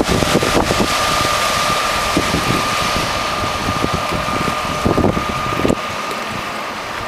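Wind buffeting the microphone, with a rushing noise and low gusty thumps. A thin, steady high-pitched whine comes in about a second in and holds at one pitch almost to the end.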